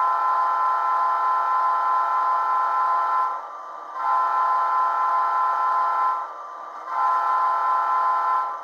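Model diesel locomotive's Tsunami 2 sound decoder blowing its horn through a small sugar cube speaker: one blast ends about three seconds in, followed by two more of about two seconds each. Under the blasts, the decoder's idling diesel engine sound hums steadily.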